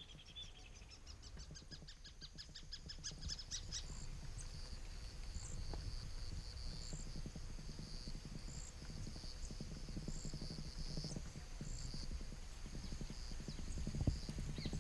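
Outdoor wildlife ambience. A rapid pulsing call climbs in pitch over the first few seconds, then gives way to a steady high drone with short chirps repeating about every second and a half.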